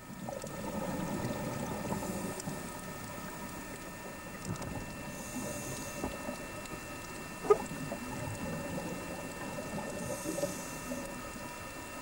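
Underwater sound around a scuba diver: a low bubbling rush from the regulator and its bubbles, with a faint steady hum. Two brief hisses come about five seconds apart, and there is one sharp click a little past halfway.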